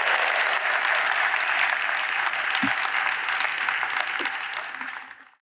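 Conference audience applauding after a talk. The clapping fades out about five seconds in.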